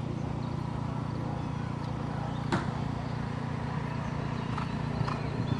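Steady low rumble of outdoor background noise, with one sharp click about two and a half seconds in and a few fainter knocks near the end.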